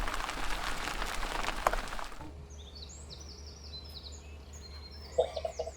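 A steady rushing noise that cuts off abruptly about two seconds in, then a songbird singing a run of quick, high, swooping chirps.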